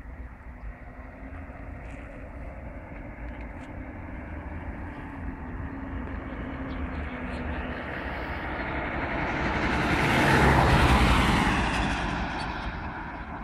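A vehicle passing by: a rushing rumble that grows steadily louder to a peak about ten seconds in, then fades.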